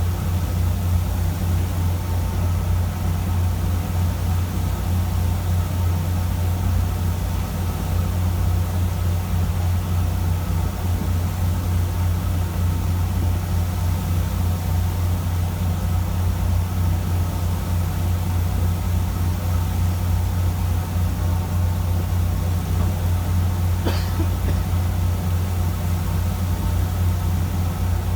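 A fishing boat's engine running steadily: a constant low hum under an even hiss, with one faint click near the end.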